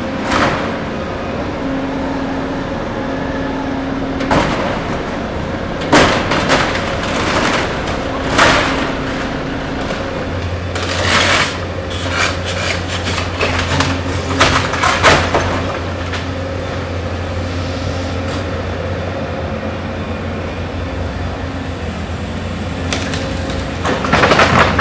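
Doosan tracked excavator's diesel engine running steadily while its demolition grapple crashes and clatters through concrete slabs, breeze blocks and timber as it demolishes a building. The impacts come irregularly, with a dense run of knocks in the middle, and a deeper engine hum joins about ten seconds in.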